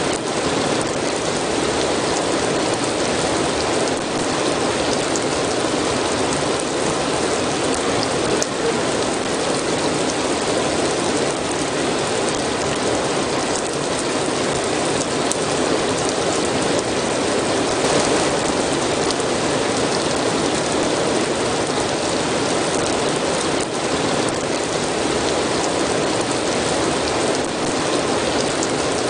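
Steady heavy rain falling on a surface, an even hiss with scattered faint drop ticks.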